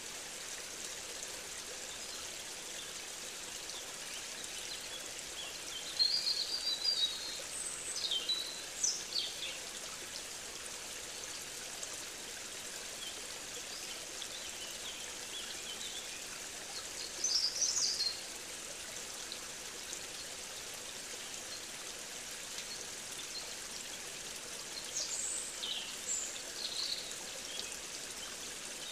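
Steady rush of a stream's running water, with a bird calling in short chirping phrases three times over it.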